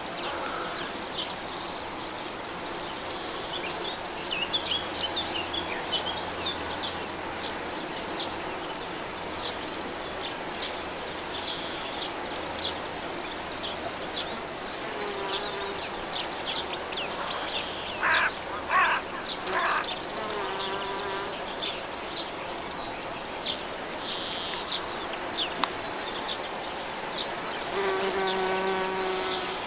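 Honeybees and bumblebees buzzing as they forage in a flowering phacelia field. Now and then one flies close by with a louder, pitched buzz, twice around the middle and loudest near the end.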